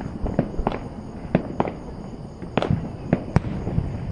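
Fireworks exploding in a quick, irregular series of sharp bangs, about ten in four seconds.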